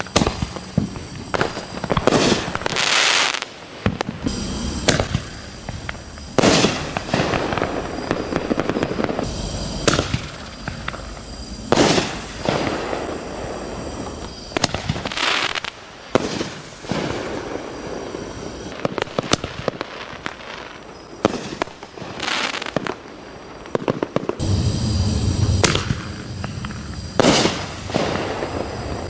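Consumer canister shells fired in succession, each going off with a sharp report every second or two, with crackling between the reports.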